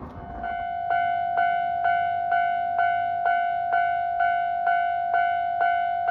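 Railway level-crossing warning bell starting about half a second in, then ringing steadily at about two strikes a second on one pitch, each strike dying away before the next: the crossing alarm signalling an approaching train.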